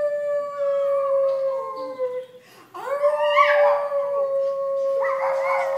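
Poodle howling: two long, drawn-out howls, the second starting nearly three seconds in and wavering more near its middle and end.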